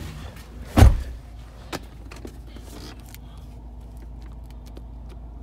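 A heavy thump a little under a second in, then a few light clicks over the steady low hum of the pickup truck's engine idling.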